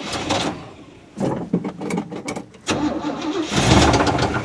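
Chevrolet 350 small-block V8 in a 1973 C10 pickup being started: a couple of short bursts of cranking, then it catches near the end and runs, getting louder.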